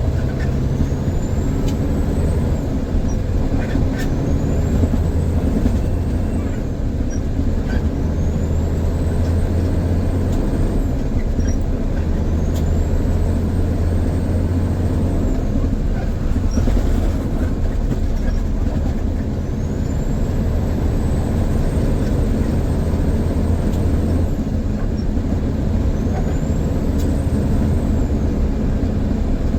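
Grain truck engine running on the road, a steady low drone, with a faint high whine that rises and falls back every few seconds.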